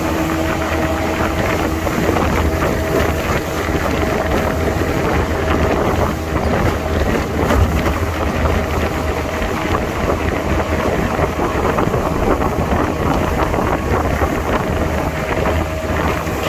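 Steady running noise of a moving vehicle: a constant low engine drone under a rushing haze, with wind buffeting the microphone.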